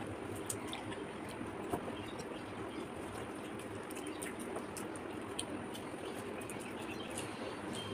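Fingers mixing rice and curry on clay plates, with chewing: many small wet clicks and squishes over a steady background hiss.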